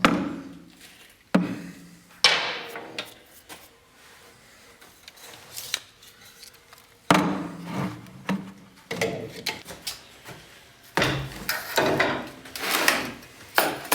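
Metal parts and tools being handled, with a series of sharp knocks and clatters at irregular intervals and a quieter stretch in the middle.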